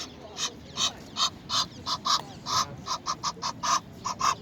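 Waterfowl calling: a long run of short, repeated calls, about three a second, coming faster in the second half.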